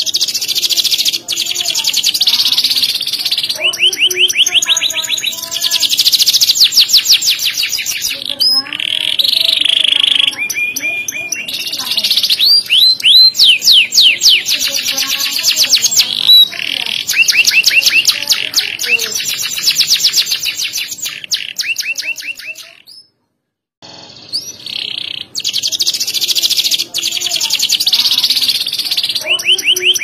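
Domestic canary singing a long, loud song of rapid trills and fast runs of repeated high notes. The song breaks off for under a second about three-quarters through, then starts again.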